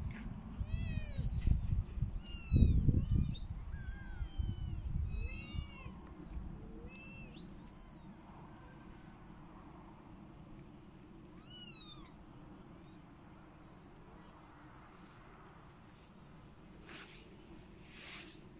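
Kittens mewing: a quick string of high, thin mews through the first eight seconds, then one more a few seconds later. A low rumble on the microphone runs under the first six seconds.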